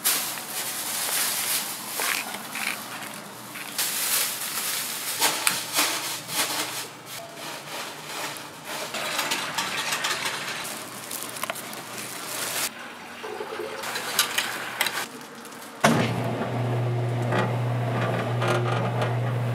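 Food-preparation handling sounds: ingredients and utensils scraping and clattering in a bowl. About sixteen seconds in, a steady electric motor hum starts abruptly, typical of a mixing machine switched on.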